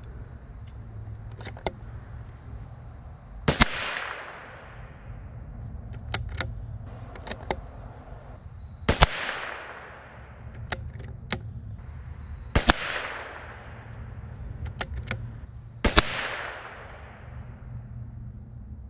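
Four shots from a bolt-action .22 LR rifle firing supersonic handloads, a few seconds apart, each with a ringing tail. Between shots come the smaller clicks of the bolt being worked to chamber the next round.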